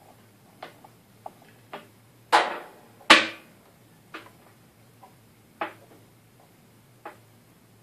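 A series of sharp clicks and knocks from hands and a soldering iron working inside a wooden subwoofer cabinet. Two much louder knocks, a little over two and three seconds in, each ring briefly.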